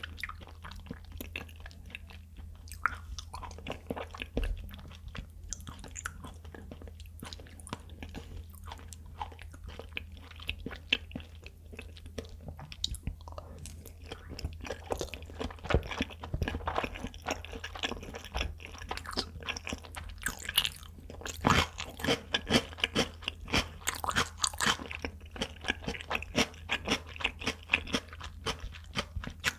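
Close-miked eating sounds: soft, wet chewing of raw tuna sashimi, then from about twenty seconds in, louder and sharper crunching, which fits a pickled white bulb being chewed.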